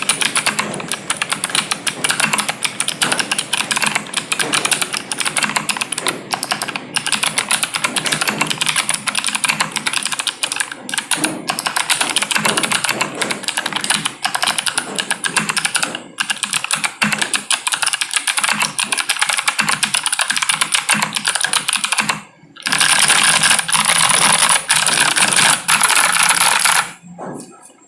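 Fast typing on a mechanical keyboard with Novelkeys Sherbet switches, an acrylic plate and PBT Cherry-profile keycaps: keystrokes clatter in a rapid, continuous stream. A brief pause comes about 22 s in, followed by an even denser run of keystrokes that stops just before the end.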